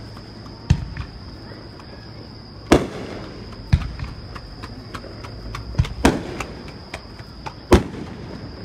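Aerial fireworks shells bursting overhead: about six sharp booms spread across eight seconds, each followed by a rumbling echo, with lighter crackling in between.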